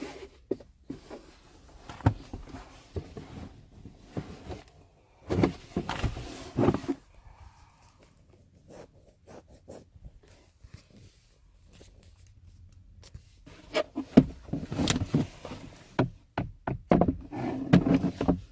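Plastic glove box door being worked back onto its hinges and clamps in a car dashboard: scattered knocks, clicks and rattling of plastic, with a quieter stretch midway and a busier run of knocks near the end.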